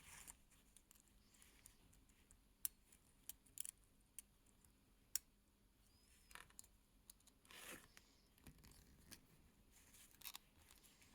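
Faint, scattered small clicks and light scraping of tools on the tiny metal parts of a mechanical watch movement as gears are picked out of it, with near silence in between.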